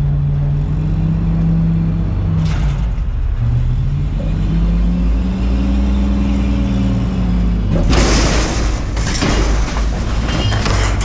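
Front-load garbage truck's engine revving up to drive the hydraulic arms as they lift a dumpster overhead, with a short hiss about two and a half seconds in. About eight seconds in, trash tips out of the container and crashes into the hopper, bags and cardboard thudding down to the end.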